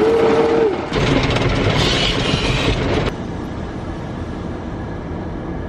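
Automatic car wash heard from inside the car: water jets and brushes pounding and hissing on the roof and glass, loud for about three seconds, then dropping suddenly to a quieter steady wash noise. A short held vocal note sounds at the very start.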